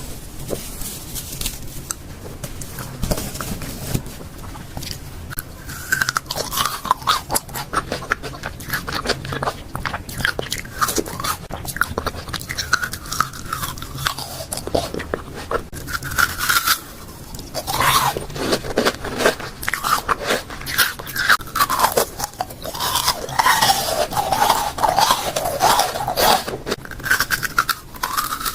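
Close-miked eating of juicy fruit: biting, crunching and wet chewing. It is sparse at first and turns into dense, loud crunching about six seconds in.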